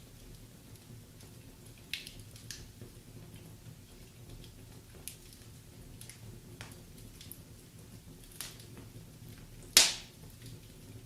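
Wood fire in a fireplace crackling, with scattered sharp pops from the burning logs over a low steady rumble. The loudest pop comes near the end.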